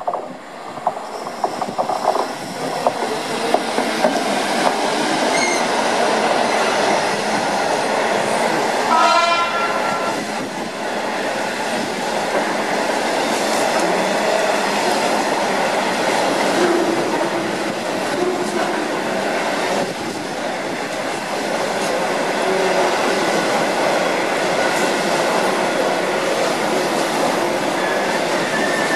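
Class 66 diesel freight locomotive passing close by with a long train of loaded hopper wagons: engine running and a steady, loud rumble of wagon wheels clattering on the rails. A short horn note sounds about nine seconds in.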